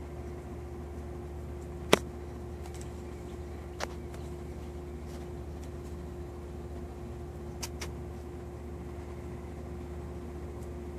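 Steady machine hum with one constant tone. A sharp click comes about two seconds in, and fainter clicks follow near four and eight seconds.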